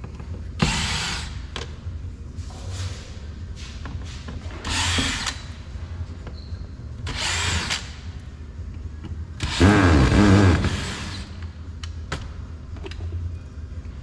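Power drill running in about five short bursts, drilling out the rivets that hold a car door's speaker module; the longest and loudest burst comes near the end.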